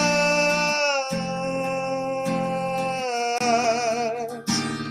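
A man singing a long held note over strummed acoustic guitar chords. The note steps down slightly about a second in and wavers with vibrato near the end.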